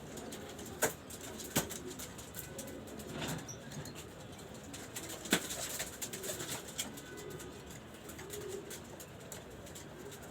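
Domestic pigeons cooing in low, wavering murmurs, with three sharp knocks, two close together about a second in and one louder about five seconds in.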